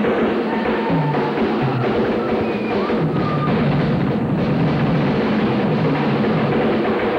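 Live rock band playing, with a full drum kit driving the beat under a stepping bass line and no singing.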